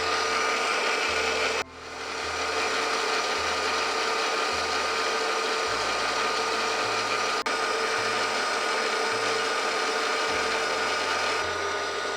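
Milling machine running steadily with a constant mechanical hum. It cuts out suddenly under two seconds in and comes back up within about half a second.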